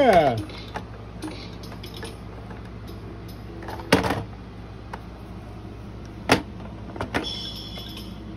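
A plastic baby drum toy knocked against a wooden climbing ramp and slapped by small hands: a few sharp knocks, the loudest about four and six seconds in. Near the end the toy's light-up pads start playing electronic chime tones. A short squeal that rises and falls opens the clip.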